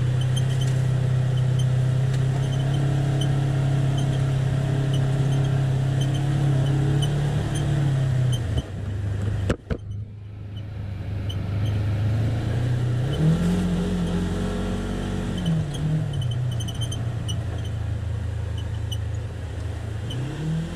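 Polaris Ranger XP 1000's twin-cylinder engine running as the side-by-side drives, heard from inside the cab. The engine note holds steady, breaks off briefly about nine seconds in, then comes back lower and rises and falls as the machine speeds up and eases off, rising again near the end.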